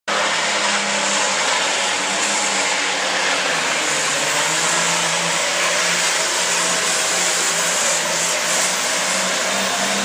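Hot farm class pulling tractor's turbocharged diesel engine running flat out under heavy load as it drags a weight-transfer sled down the track, a loud, steady sound that holds at one level throughout.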